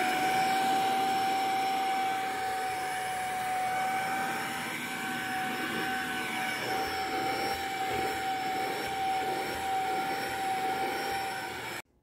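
Electrolux STK13 Power Speed 2-in-1 corded vacuum cleaner, its detachable handheld unit running and sucking along upholstery and a rug edge, with a steady high-pitched motor whine over the rush of air. It cuts off abruptly near the end.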